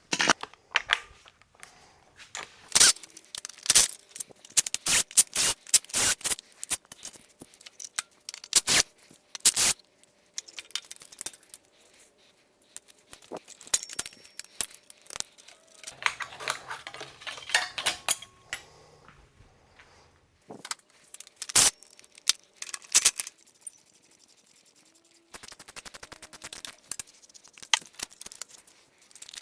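Metal clinks and clatter from hand tools and engine parts being handled during an engine teardown: sharp irregular clicks in bunches, with a longer run of rattling in the middle.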